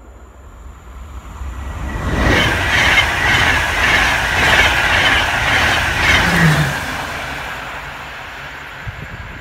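Double-deck InterCity passenger train with an electric locomotive passing at speed. A loud rush of wheels on rails with rapid clickety-clack builds to its peak about two seconds in, then fades over the last few seconds as the train goes by.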